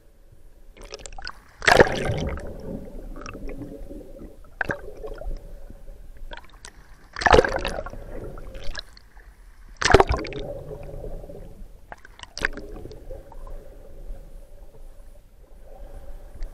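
Muffled water splashing and bubbling heard from under the surface: three big surges about 2, 7 and 10 seconds in and smaller splashes between, over a faint steady hum.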